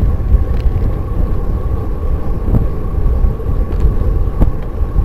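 Wind buffeting and road rumble on a rear-facing bicycle camera while riding, a heavy low rumble that rises and falls without letting up. There is a short sharp click about two and a half seconds in and another near the end.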